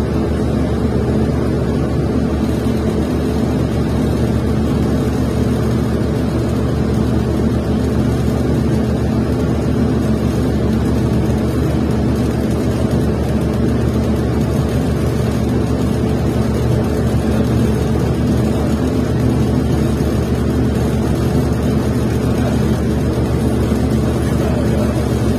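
Bus powertrain running steadily: a Cummins Westport ISL-G inline-six natural-gas engine with a steady drone that does not rise or fall.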